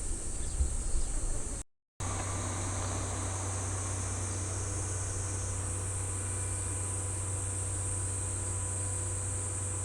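Train rumbling for the first couple of seconds, then after an abrupt cut a steady high-pitched insect buzzing with a steady low hum beneath it.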